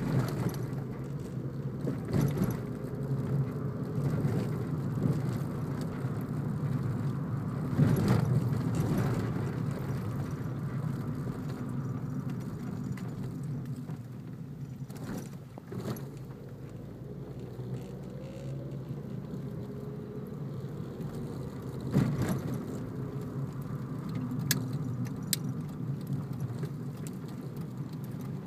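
Car driving on a road: steady engine and tyre rumble, with a few short knocks from bumps along the way.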